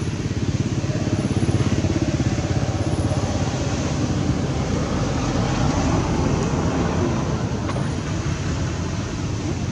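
A motor engine running steadily, with a low, evenly pulsing rumble.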